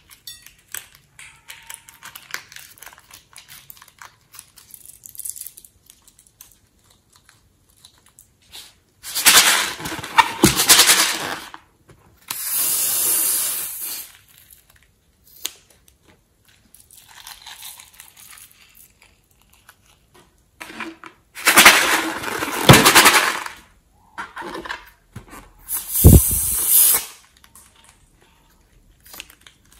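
Small scissors snipping open a rubber balloon and plastic tubes, with faint clicks and rustles, then four loud, noisy bursts of a second or two each as their contents are squeezed out onto slime; the last burst has a low, buzzing tone in it.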